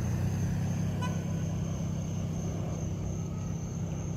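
A vehicle engine idling with a steady low hum, under the high, pulsing trill of crickets; a brief high chirp about a second in.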